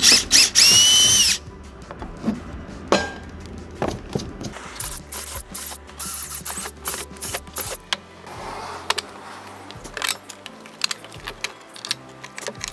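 DeWalt cordless drill with a twist bit boring through a wooden table board. It gives a loud whine for about a second and a half at the start, then a run of short on-off bursts around the middle as the hole is drilled through.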